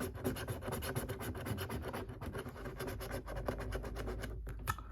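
A coin scratching the latex coating off a scratchcard in rapid, even strokes, slowing near the end with a sharp click.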